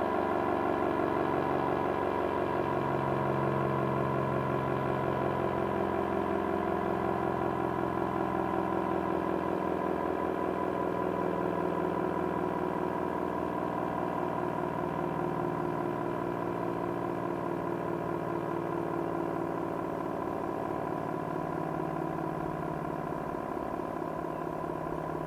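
ACA Cyclone 125 omnidirectional outdoor warning siren sounding its steady alert tone: several pitches held at once that beat against each other in a fast wavering, slowly getting a little quieter.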